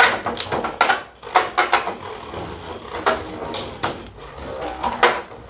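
Two Beyblade Burst spinning tops, Spriggan Requiem and Legend Spriggan, clashing in a red plastic stadium: irregular sharp clicks and clacks as the tops strike each other and the stadium wall. The hits are thickest in the first two seconds, with another loud clack about five seconds in.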